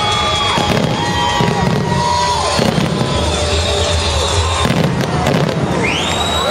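Fireworks finale: a dense run of bangs and crackling bursts, with many high whistles gliding up and down in pitch.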